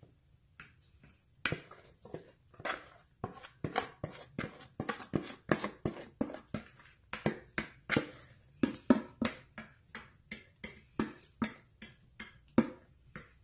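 Basbousa batter being scraped out of a white mixing bowl into a glass baking dish: a quick run of sharp taps and scrapes against the bowl, about three a second, starting about a second and a half in.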